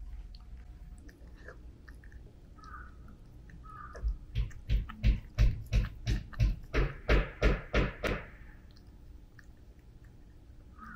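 A run of about a dozen evenly spaced soft thumps, about three a second, lasting some four seconds in the middle.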